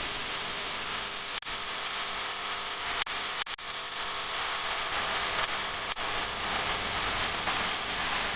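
Steady factory machine noise, a dense hiss with a faint hum, broken by a few very short dropouts about one and a half, three and six seconds in.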